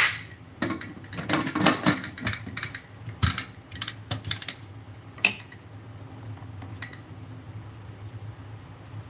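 Aluminium pressure cooker lid being fitted and closed: a run of light metal clicks and clatters, ending in one sharp click about five seconds in. After that only a steady low hum is left.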